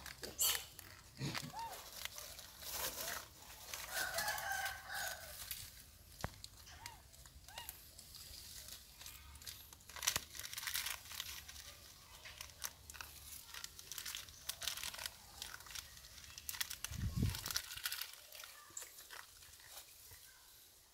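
A foil-lined plastic packet of dry instant noodles crinkling and rustling in a monkey's hands, with crunching as the dry noodles are bitten, in irregular bursts. A short crowing call is heard about four seconds in.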